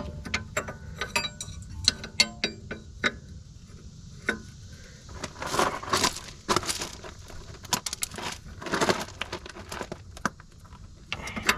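A wrench clinking and clicking on the fitting of a loose hydraulic hose as it is tightened, a quick run of metal ticks, then several longer, noisier scraping strokes partway through.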